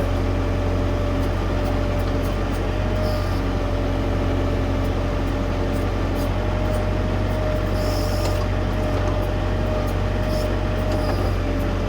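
LS tractor's diesel engine running steadily while powering the 3100 series backhoe, with a steady whine over the engine and scattered light clicks.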